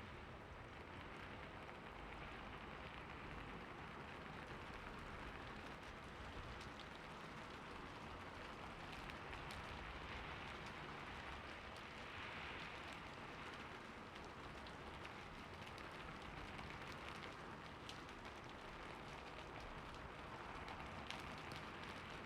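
Rain falling steadily on a rooftop, an even patter with scattered sharper drop ticks.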